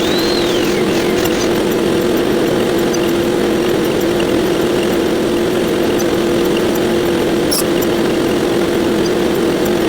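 Sound effects sped up 128 times, blurred into a steady buzzing drone that holds one pitch, with faint ticks throughout. A short high tone falls away right at the start, and a brief crackle comes about three-quarters of the way through.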